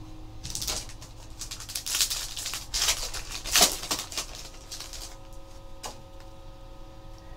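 Foil trading-card pack wrapper crinkling and tearing open as cards are pulled out, with bursts of crackling over the first four seconds or so and a single click later.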